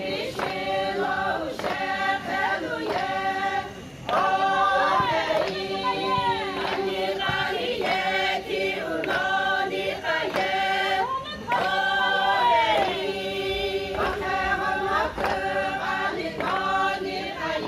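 A group of women singing a Sumi Naga folk song together, unaccompanied, in short repeated phrases with falling glides.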